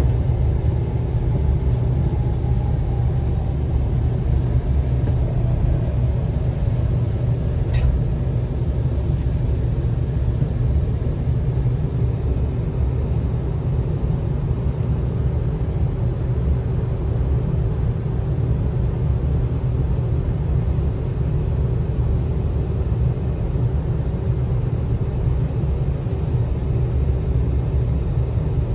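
Cabin noise inside a Taiwan High Speed Rail 700T train running into a station: a steady deep rumble from the running gear with a faint steady hum above it.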